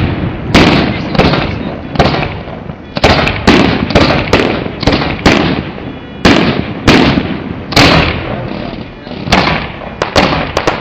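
Fireworks display: aerial shells bursting in quick succession, over a dozen loud, sharp bangs, often about two a second, each followed by a short rumbling tail.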